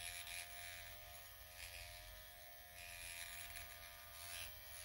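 Dr. Pen electric microneedling pen buzzing faintly and steadily, its motor driving the needle cartridge as the pen is worked over the cheek.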